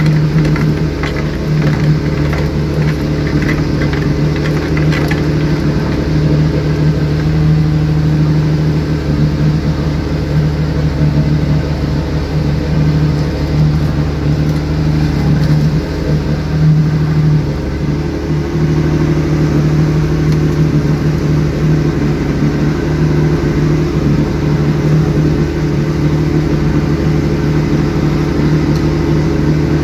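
A small fishing boat's motor running steadily under way at a constant pitch, with water rushing along the hull. A few faint clicks in the first few seconds.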